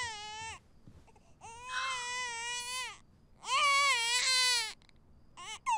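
Infant crying: a run of long wails with short gasping pauses between them, ending in two short cries.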